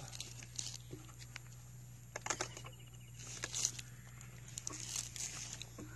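Spade and bar digging at hard, dry earth: several short bursts of scraping and clicking a second or so apart, over a steady low hum.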